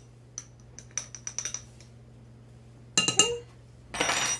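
Measuring spoon ticking and scraping against the rim of a small cream of tartar jar as a teaspoon is scooped and levelled. A louder clink with a brief ring comes about three seconds in, and a short scrape just after four seconds.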